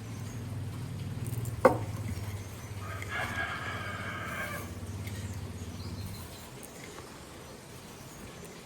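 A rooster crowing once, a single call of about a second and a half starting about 3 s in, over a steady low hum that stops about 6 s in. A single sharp click about 1.7 s in is the loudest sound.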